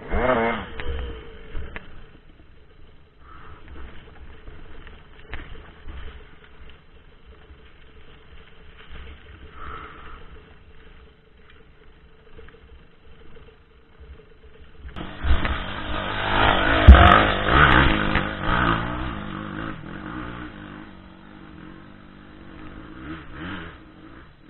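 Dirt bike engine heard from on board: a quick rev at the start, then a low steady running for about fifteen seconds. About fifteen seconds in it revs hard and loud with a rattling clatter, then eases off near the end.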